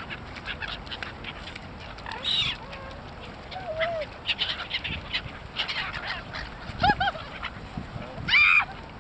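Waterfowl, geese and ducks, calling and honking as they are fed. The loudest honks come about two seconds in and twice near the end.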